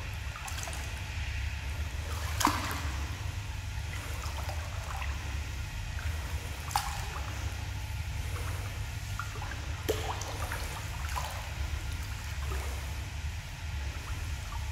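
Indoor swimming-pool water lapping and trickling at the pool edge, with a few sharp, echoing drips or small splashes, over a steady low hum.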